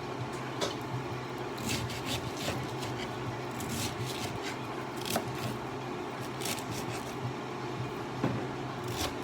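Knife cutting through a purple cabbage in slow, irregular strokes, each a short knock, over a steady low hum.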